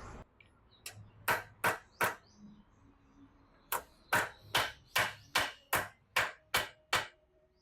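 Hammer tapping metal, sharp ringing strikes: four quick blows, a short pause, then nine at an even steady beat. It fits tapping a Hero Splendor's steering-head cone set race down into its seat.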